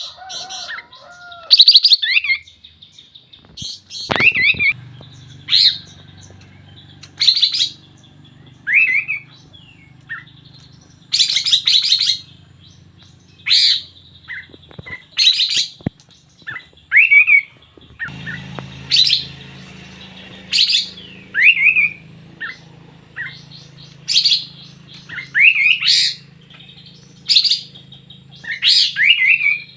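Kapas tembak songbird calling vigorously: short, sharp chirps and quick swept whistles repeated every second or two, over a faint low hum.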